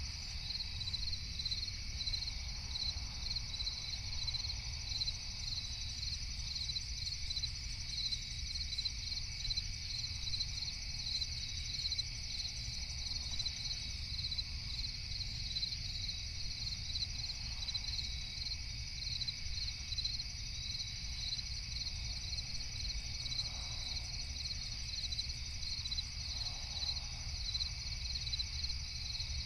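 Night chorus of crickets chirping in a steady, evenly pulsing rhythm over a low, constant rumble of background noise.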